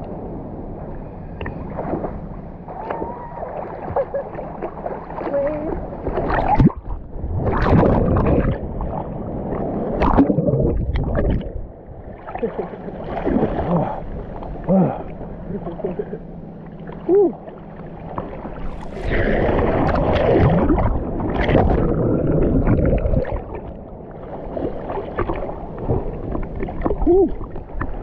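Seawater sloshing and splashing around a camera held at the surface by a swimmer, with muffled gurgling and bubbling as it dips into the waves. Several louder splashes stand out along the way.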